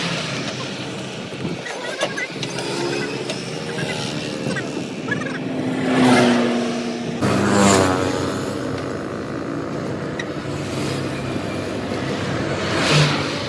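Road traffic: vehicles pass one after another, the loudest about halfway through and again near the end, over the steady low hum of an engine running.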